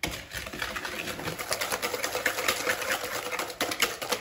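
Wire balloon whisk beating eggs and sugar in a plastic mixing bowl: fast, even clicking and swishing as the wires strike the bowl's sides.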